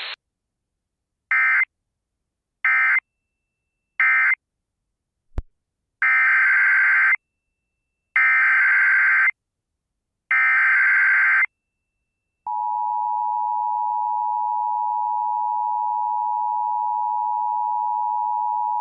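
Emergency Alert System data tones from a Sage Endec: three short screeching SAME bursts ending the previous tornado warning, a single click, then three longer SAME header bursts opening the next warning. About two-thirds of the way in, the steady two-tone EAS attention signal starts and holds.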